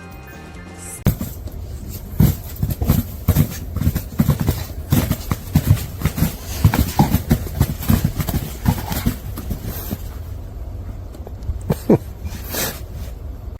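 A short bit of music that cuts off about a second in, then a long run of irregular thumps and knocks over a low rumble.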